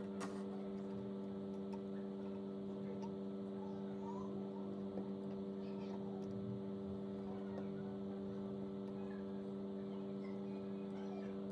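Steady electrical or mechanical hum, one low tone with several higher overtones, unchanging throughout, with a faint click about a quarter second in.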